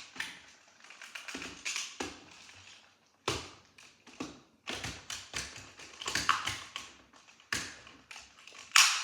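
Irregular plastic clicks and knocks as a part is fitted onto a Dart Zone Max Stryker 2.0 toy dart blaster, with one loud click near the end.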